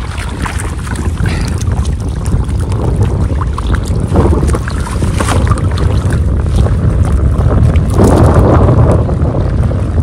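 Wind buffeting the microphone: a steady low rumble with gusts and a louder surge near the end, over water noise on a fishing boat.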